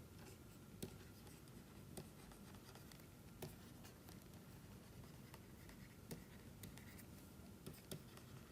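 Faint pen writing: light scratches and a few soft taps, scattered at irregular intervals over quiet room tone.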